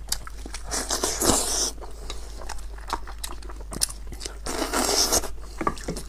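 Close-miked eating sounds: biting and chewing at braised sheep head meat, with many sharp mouth clicks and smacks and two longer noisy stretches, about a second in and near five seconds.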